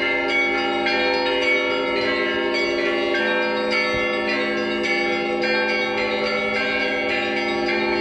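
Church bells pealing continuously, many bells struck in quick overlapping succession so their tones ring on together.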